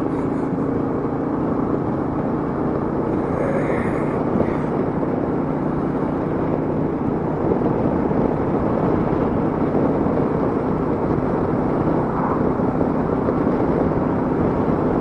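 Royal Enfield Meteor 350's single-cylinder engine running steadily at cruising speed, under a constant rush of wind and road noise.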